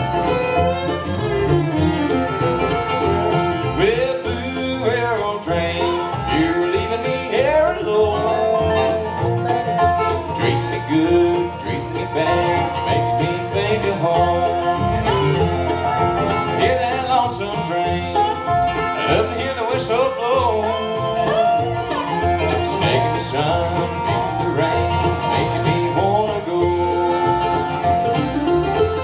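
Acoustic bluegrass band playing live: fiddle, acoustic guitars, mandolin, dobro and upright bass, with sliding notes in the lead.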